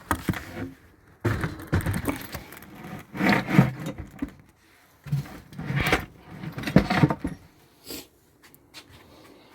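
Chipboard cage box being turned over and handled, with irregular knocking, scraping and clattering of wood in two stretches and a single knock near the end.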